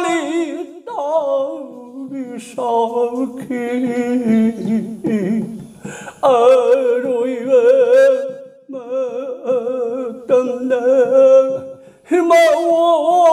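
An elderly Nata Sankirtan singer singing unaccompanied, in several long held phrases with a wavering vibrato. The singing gets louder about halfway through.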